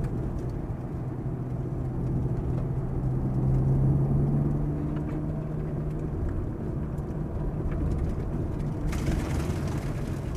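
Ferrari F430's V8 engine running under the cabin, heard from inside the car at a steady pace. Its note swells and rises slightly a few seconds in, then eases back. A rushing hiss comes in near the end.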